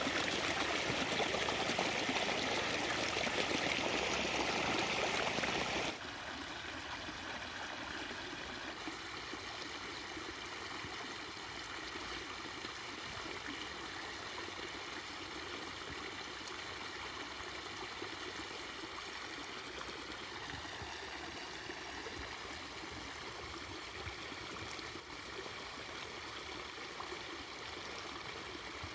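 Flowing river water running steadily. It is louder and hissier at first, then drops to a quieter flow about six seconds in.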